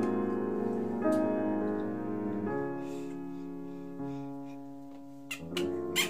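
Background piano music: slow held chords that change every second or so and fade gradually, with a few short taps near the end.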